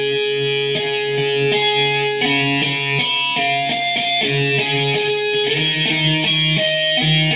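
Gibson Les Paul Special electric guitar played loud through an amp: tapped harmonics, a run of ringing notes with long sustain, changing about every half second.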